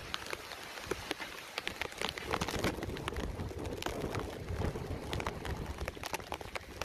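Heavy tropical-storm rain pouring down, with many sharp ticks of drops striking close by. Gusting wind buffets the microphone in a low, rising-and-falling rumble.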